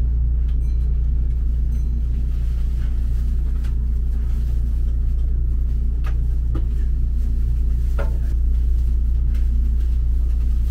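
Steady low rumble inside a Kintetsu Hinotori express train car, with a few faint clicks and knocks.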